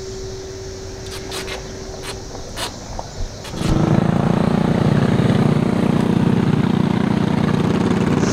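Small engines of miniature parade cars (a go-kart and a mini roadster) running loudly past, starting suddenly a little over halfway through. Before that there is a quieter stretch with a steady hum and a few sharp clicks.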